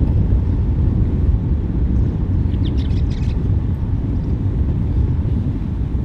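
Steady, loud low rumble, with a short run of high chirps about two and a half seconds in.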